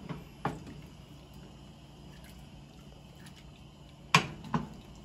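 Wooden spoon stirring macaroni in a pot of water on the stove, the liquid moving softly, with a few sharp knocks of the spoon against the pot, a double knock about four seconds in the loudest.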